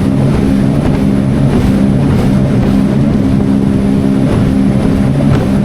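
Jet ski engine running at speed on open ocean: a loud, steady drone that breaks off briefly at regular intervals, over a dense rushing noise of wind and water.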